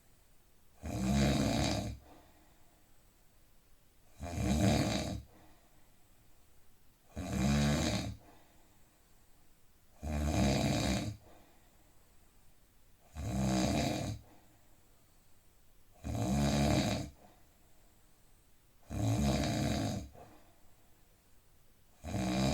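A man snoring in deep sleep, rhythmic and unbroken: one low-pitched snore about every three seconds, each about a second long, with quiet breathing between.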